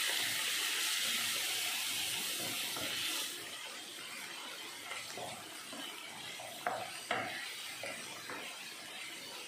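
Onion-tomato masala with spice powders sizzling in oil in a nonstick pan while a spatula stirs it. The sizzle drops away about three seconds in, leaving quieter scraping and stirring with a couple of light knocks.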